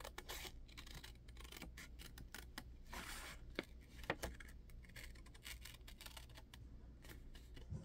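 Faint rustling of paper with scattered light clicks and taps as papers and craft supplies are handled on a work surface.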